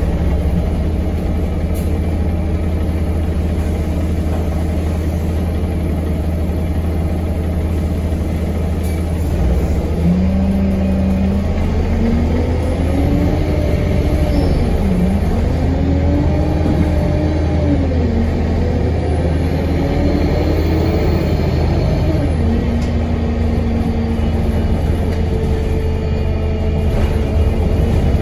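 2017 Alexander Dennis Enviro 200MMC single-deck bus heard from inside the saloon: a steady low engine drone. From about ten seconds in, an engine note rises and falls several times as the bus works through its gears, then holds at a steady pitch near the end.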